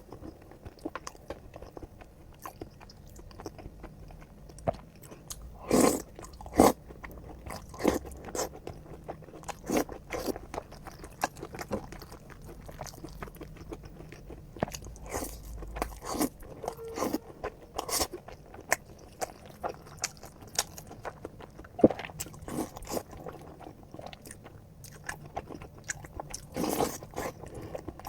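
A person chewing and biting into crunchy food close to the microphone, with irregular sharp crunches and mouth clicks. The loudest bites come about six seconds in and again a little after twenty seconds.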